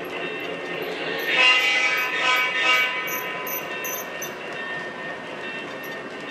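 Electronic horn of an O-gauge model train's sound system, a chord of several tones blowing for about two seconds starting a little past a second in, over the steady rolling rumble of model trains running on the track.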